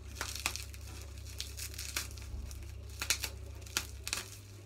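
Wrapping on a small item being pulled open by hand: irregular crackles and rustles.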